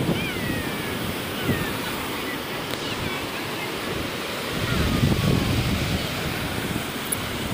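Rough sea surf breaking and washing over a rock-boulder seawall, with wind buffeting the microphone; the surge swells louder about five seconds in.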